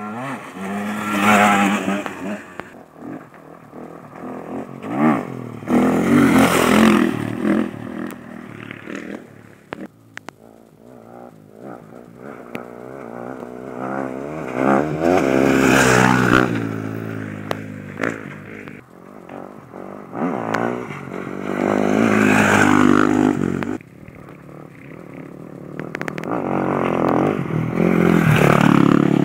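Enduro dirt bikes pass close one after another, about five in turn. Each engine revs up and changes gear as it accelerates past, its sound swelling and then fading.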